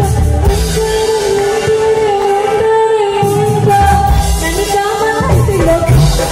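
A woman singing live with a band through a loud PA. She holds one long note for about three seconds, then the bass and drums come back in and she moves on into the melody.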